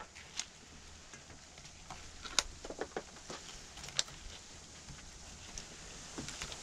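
Fillet knife slicing meat away from a deer's shoulder blade: faint wet cutting and scraping with scattered sharp clicks, the sharpest about two and a half and four seconds in.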